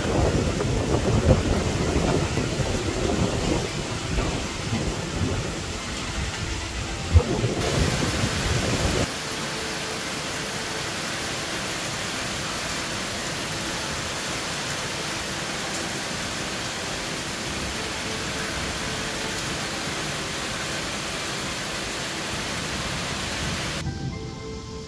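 Thunderstorm downpour: heavy rain in strong, gusting wind that buffets the microphone with a low rumble, with two sharp knocks. About nine seconds in it changes abruptly to a steadier hiss of heavy rain.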